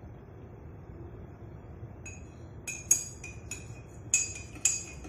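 A spoon clinking repeatedly against a cup, each strike ringing briefly, starting about two seconds in: stirring up the dissolved custard powder before it is poured into the milk.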